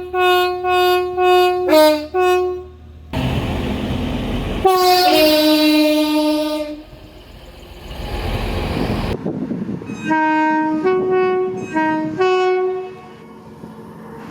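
Locomotive air horns sounding a chord: a few short blasts, then one long blast, then a quick run of short blasts, separated by abrupt cuts. Stretches of loud rushing noise fill the gaps between horn segments.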